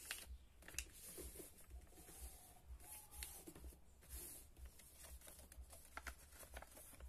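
Faint rustling and crinkling of a sheet of paper being folded and creased by hand into a paper airplane, with a few soft scattered clicks.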